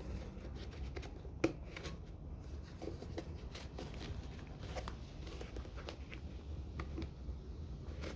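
Hands wiggling a thin metal ring loose from around the rubber intake opening of a dirt bike's airbox: scattered faint clicks, taps and rustles, with one sharper click about a second and a half in.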